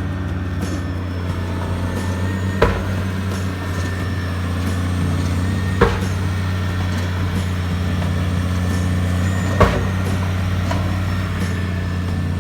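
Machinery on a construction site running with a steady low drone, with three sharp knocks, each three to four seconds apart.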